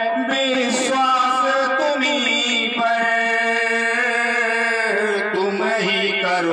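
A man singing a Hindi devotional song (bhajan) to Ram, in long held notes with a wavering pitch.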